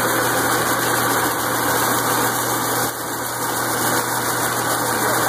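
A stainless-steel aronia berry destemmer running steadily, with an even machine hum under the hiss of water being sprayed from a hose.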